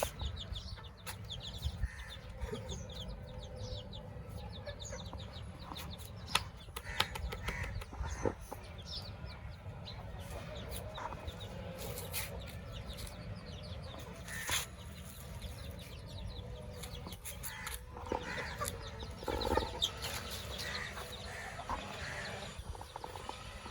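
A flock of chickens clucking, with scattered short calls, a few sharp clicks and knocks, and a steady low rumble underneath.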